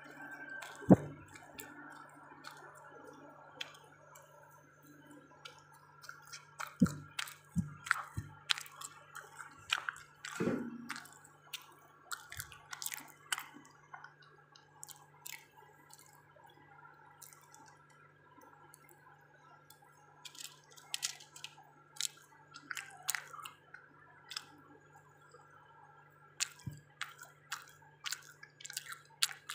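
Wet, smacking mouth sounds of someone chewing soft black forest cake: irregular small clicks and squishes, thinning out for a few seconds in the middle, over a faint steady hum.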